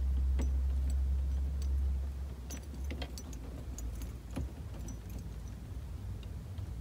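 Small metallic clicks and rattles, irregularly spaced, as a thin wire is worked into the release hole of a steering-column ignition lock cylinder to push its retaining catch. A low steady hum runs underneath, louder for the first two seconds.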